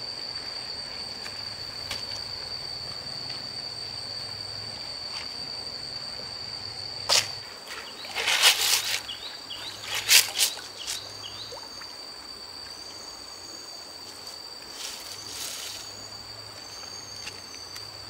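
A steady, high-pitched insect drone, with a few short knocks and scrapes about seven to eleven seconds in.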